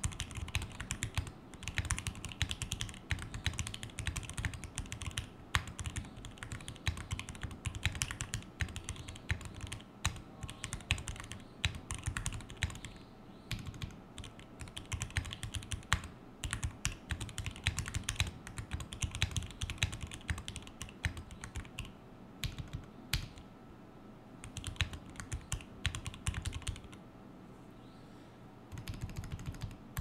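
Typing on a Kbdfans Tofu60 mechanical keyboard with a brass plate, case foam, lubed Durock L7 linear switches with switch films, and PBT keycaps: a dense, continuous run of keystrokes. There are a few short pauses, the longest near the end.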